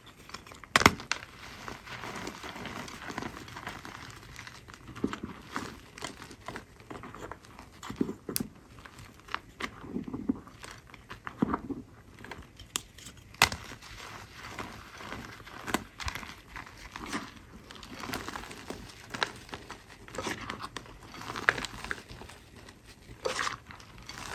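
Hands squeezing and crumbling damp, powder-coated clumps in a bowl of white powder: an irregular run of crunching, crackling squishes with scattered sharp snaps.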